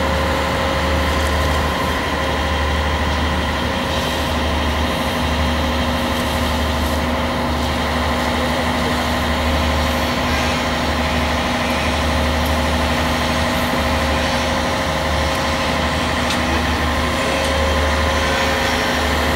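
A crawler crane's heavy diesel engine running steadily under load, with a low thrum and a steady hum of several tones over it. One of the lower tones fades out about three-quarters of the way through.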